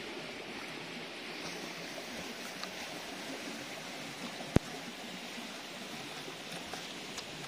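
Steady outdoor rushing noise, like wind or running water, with a single sharp click about four and a half seconds in.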